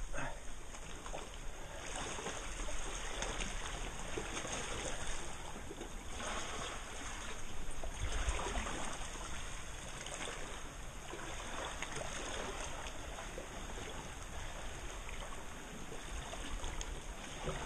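Seawater sloshing and splashing around a camera held right at the surface by a swimmer, rising and falling every second or two.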